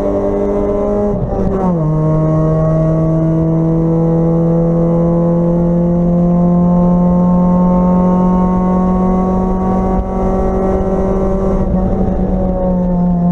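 Acura Integra race car's four-cylinder engine heard from inside the stripped cabin at full throttle. About a second in the pitch drops sharply with an upshift, then the revs climb slowly and steadily through the gear, and near the end the engine eases off and the pitch falls again.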